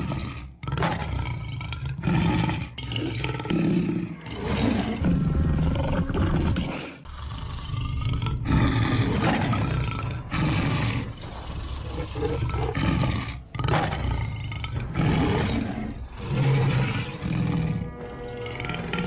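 Lion roaring and growling over and over, one deep rough roar running into the next with only short breaks.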